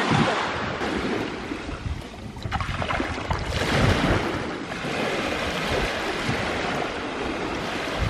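Sea waves breaking and washing on the shore, swelling and ebbing, with wind rumbling on the microphone.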